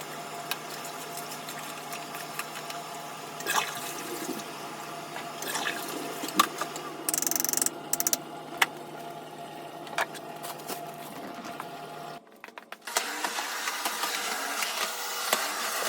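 Water running and splashing during household cleaning, with scattered knocks and clatters. It cuts off abruptly about twelve seconds in, and a different, rougher noise follows.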